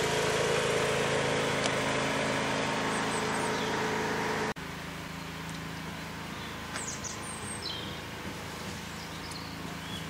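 Steady engine and road noise of a car driving, then an abrupt cut, about four and a half seconds in, to quieter outdoor ambience with a few faint high bird chirps.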